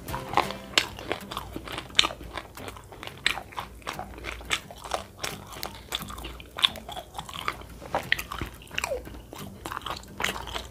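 Chewing mouthfuls of crispy fried chicken, an irregular run of sharp crunches and mouth clicks.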